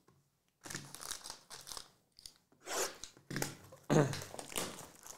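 Plastic shrink-wrap being torn and crinkled off a sealed trading-card box, in irregular bursts starting under a second in, loudest about four seconds in.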